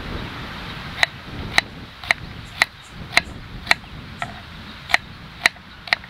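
A knife slicing a small pink onion on a wooden chopping board. The blade taps the board about ten times in an even rhythm of roughly two strokes a second.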